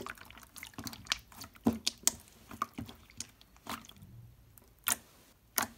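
Glossy jiggly slime squeezed and pressed by hand, giving off irregular sharp, wet clicks and pops that sound just like water.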